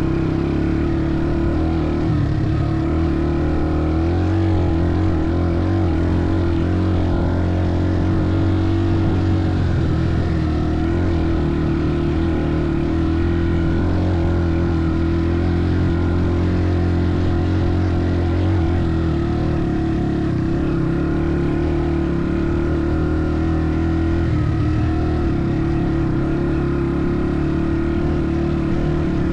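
An engine running at steady revs, its low note shifting a little about two-thirds of the way through.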